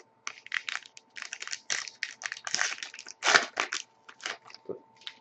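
A trading-card pack wrapper being torn open and crinkled by hand: a quick run of crackling rustles that lasts about four and a half seconds.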